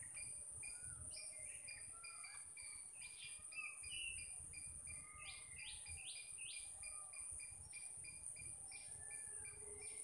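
Birds chirping and calling in short, curving calls over a steady high-pitched insect drone, with a quick chirp repeating several times a second.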